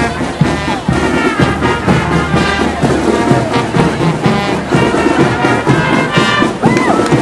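High school marching band playing as it marches past, with trombones and trumpets carrying the tune.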